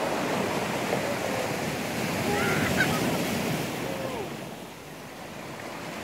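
Small waves breaking and washing in foam over a shore of rounded stones, the surf swelling and then falling away about four and a half seconds in. Faint voices can be heard in the background.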